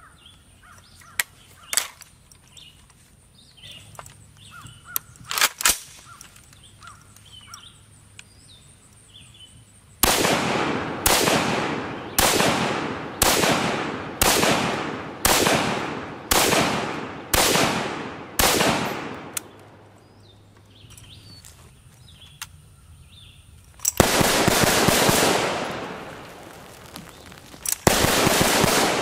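AR-180 rifle firing: about ten single shots roughly a second apart, each with an echo, then two strings of rapid fire, the first about two seconds long and the second near the end. Before the shooting there are a few sharp clicks and a crow cawing faintly.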